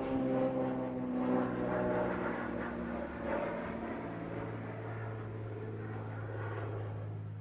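Airplane flying over, a steady engine drone whose pitch slides slowly down as it passes and fades toward the end.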